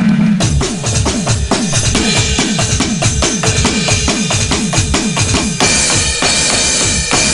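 Drum kit played in a steady, quick rhythm, starting about half a second in. Each low drum stroke drops in pitch, under a constant hiss of cymbals or tambourine.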